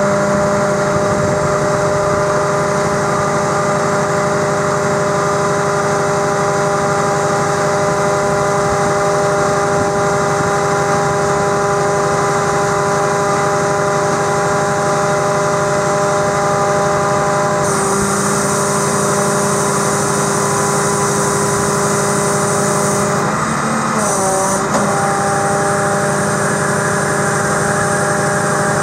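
A Scania R420 truck's inline-six diesel running with the PTO-driven hydraulics working the JOAB hooklift arm, a steady whine over the engine. The whine changes about two-thirds of the way through and dips briefly in pitch a little later as the arm folds forward into its stowed position.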